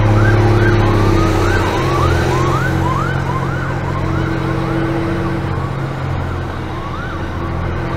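An emergency-vehicle siren in a fast yelp, quick rising-and-falling sweeps that grow fainter near the end, over the steady drone of the 1983 Mack CF611 fire engine's six-cylinder diesel heard inside the cab.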